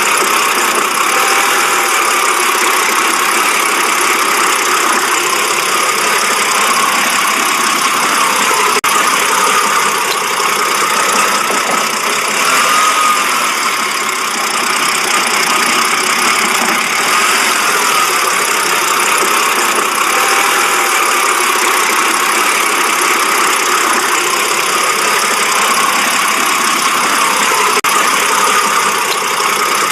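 BMW engine idling roughly, a steady running sound with no revving.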